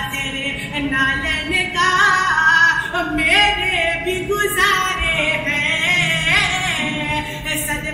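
A solo voice singing an Urdu devotional song (manqabat), holding long, ornamented notes that glide up and down with few clear words.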